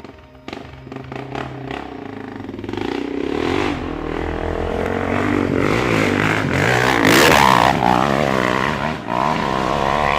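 Single-cylinder dirt bike engine revving, its pitch rising and falling again and again and growing louder toward the middle.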